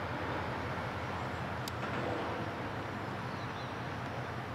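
Steady low rumble of the passing RORO cargo ship's diesel engine, with a single sharp click about one and a half seconds in.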